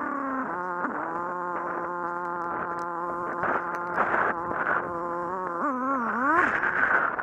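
Kawasaki Z750 motorcycle engine slowing down, then holding a steady pitch at low speed. Near the end the revs rise and fall a few times.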